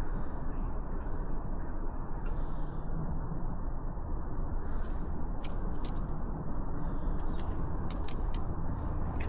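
Steady outdoor background noise with two short high bird chirps, falling in pitch, about one and two seconds in. In the second half comes a scatter of sharp clicks and taps from hand tools working the exhaust fittings.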